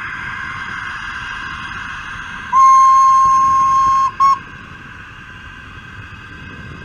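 Model train's warning toot: one long toot of about a second and a half, then a short one, over the steady whir of the model train running.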